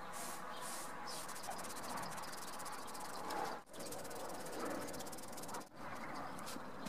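Sponge rubbing back and forth over a carved hornbeam axe handle: a steady scratchy rubbing with fast fine ticks as it crosses the carved ridges, dropping out briefly twice.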